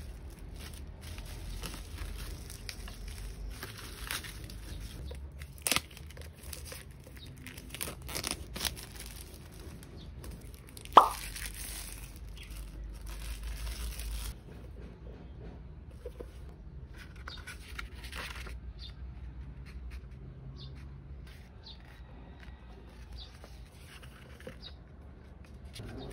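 Plastic bubble-wrap mailer crinkling and tearing as it is opened by hand, with a few sharp pops, the loudest about eleven seconds in. About halfway through it gives way to quieter handling of a hardbound paper planner and its pages being turned.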